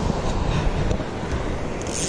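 Wind buffeting the action camera's microphone, a steady low rumble, over the wash of choppy shallow sea water, with a brief hiss near the end.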